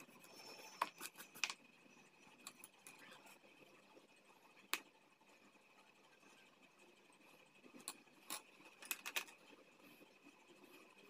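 Quiet handling of colour pencils on a paper sketchbook: a few short, sharp clicks and taps as pencils are picked up, set down and worked on the page, over a faint steady high whine.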